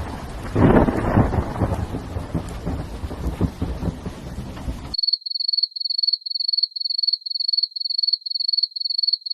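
Thunderstorm sound effect: rain with a rumble of thunder swelling loudest about half a second in, cutting off suddenly about five seconds in. Then a crickets sound effect: a high, even chirp repeated about two and a half times a second.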